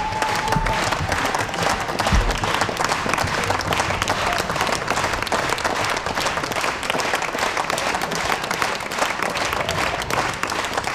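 Opera-house audience applauding steadily at a curtain call: dense, even clapping from a large crowd.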